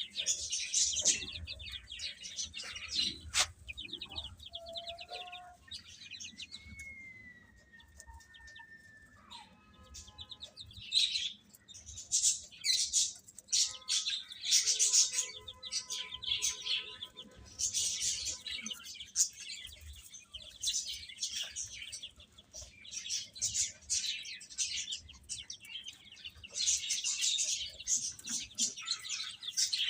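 Baby chicks peeping: many short, high chirps overlapping, thinning out for a few seconds partway through before picking up again. A single sharp click comes about three seconds in.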